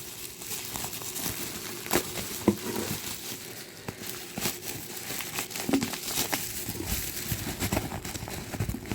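Packaging crinkling and rustling as a book is worked out of its wrapping, with many small irregular clicks and crackles.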